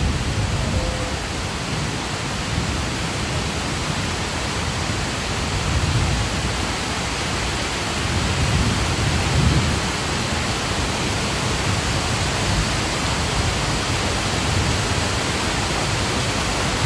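Heavy rain pouring down in a steady, dense hiss. A deeper low rumble swells up twice, around the middle.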